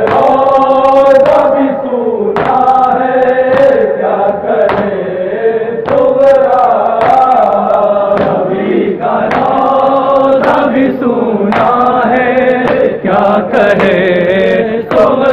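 Men chanting a nauha, a Shia mourning lament, together as a group. Sharp hand-on-chest slaps of matam land in a steady rhythm about once a second.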